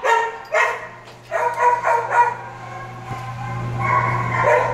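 Dogs barking in kennels: a run of about six short barks in the first two and a half seconds, then a longer drawn-out call near the end, over a steady low hum.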